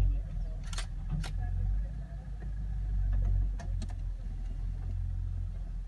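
Low steady rumble of a vehicle engine idling, with a few sharp clicks about a second in and again a little past the middle.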